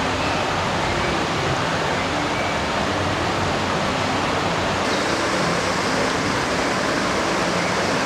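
Steady rush of river water flowing over a stony bed.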